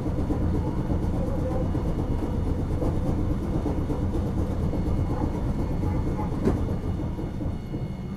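Onboard running sound of a 1950 Nippon Sharyo–built Nagasaki Electric Tramway Series 202 streetcar: a steady low rumble of the wheels and traction motors on the rails. A single sharp click comes about six and a half seconds in, and the rumble grows a little quieter near the end.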